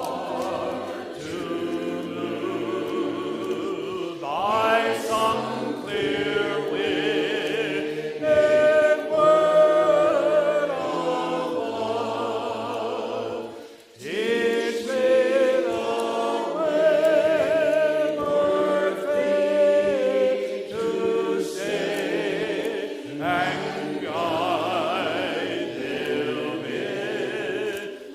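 Worship music: a group of voices singing together in long held notes, with a short break about halfway through.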